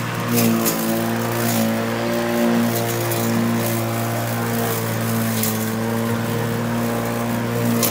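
Makita cordless battery lawn mower running while pushed through grass and weeds, a steady motor-and-blade hum with brief crackles as stalks are cut.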